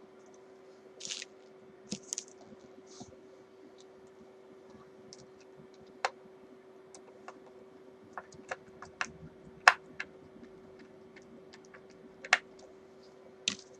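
Scattered small clicks and taps of a screwdriver and screws while a pickguard is screwed onto an electric guitar body, with a few brief scrapes early on and a faint steady hum underneath.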